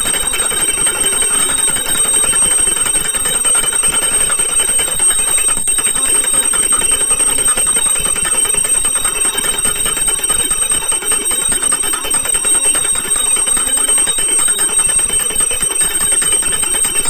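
Small metal bells ringing rapidly and without a break in a steady jangle, like a puja bell rung through an aarti.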